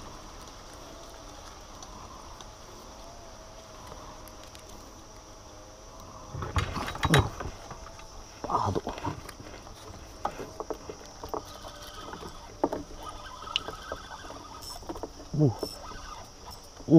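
A small boat is handled with gear knocking against it: quiet for about six seconds, then a run of knocks and thumps, the loudest about seven seconds in, followed by scattered small clicks and another thump near the end.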